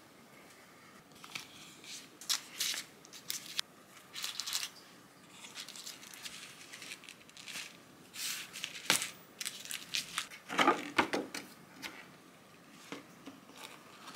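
Paper muffin cases, a paper box and a clear plastic lid crinkling and rustling in a string of short bursts as muffins are handled and packed.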